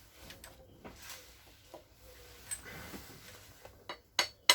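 Light clicks and rattles of metal engine parts being handled, with a few sharp metallic clinks near the end.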